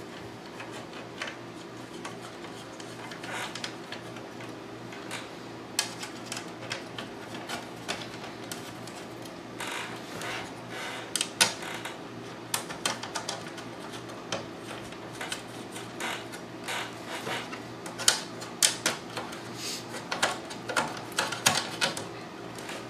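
Irregular light clicks and taps as the top cover of a Popcorn Hour media player is fitted and its thumb screws are turned by hand, in small clusters.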